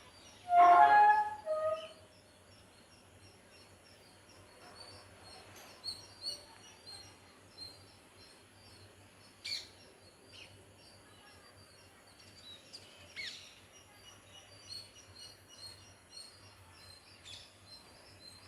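A parrot gives a loud harsh squawk about half a second in and a shorter one just after. Then faint high chirps and a few brief sharper calls from birds.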